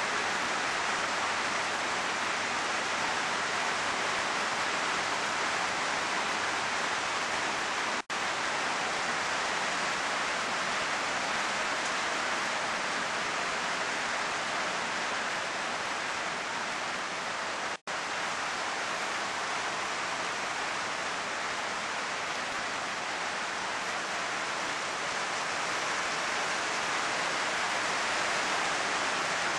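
Heavy downpour of rain as a steady, even hiss, breaking off for an instant twice.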